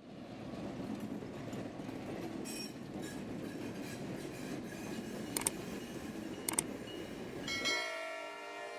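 Freight train rolling past with a steady low rumble, and two quick double clicks of wheels crossing a rail joint. Near the end the rumble gives way to a chord of steady held tones.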